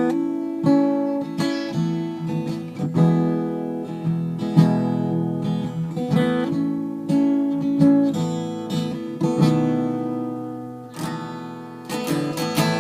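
Acoustic guitar strumming chords, an instrumental intro with no singing.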